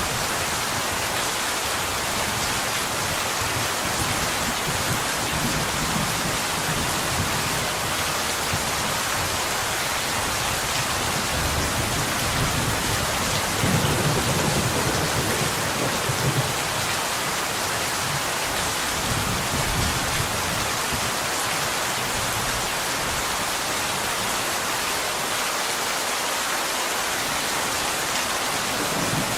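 Steady, even rain falling on a window. A low rumble of distant thunder swells about halfway through.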